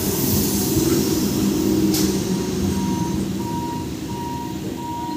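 Electric multiple-unit local train passing close by: a steady rumble of wheels on rail with a low hum, easing off slightly toward the end as the rear cab goes by. From about halfway in, a high electronic beep repeats about three times every two seconds.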